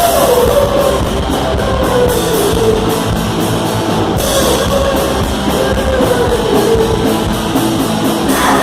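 Punk rock band playing: distorted electric guitars over a fast, steady drum kit beat with crashing cymbals, and a held, gliding vocal line.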